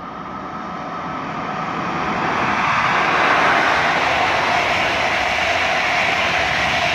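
Regional train of n-Wagen (Silberling) coaches passing at speed, the rush of wheels on rails growing louder over the first three seconds, then holding steady as the coaches run by.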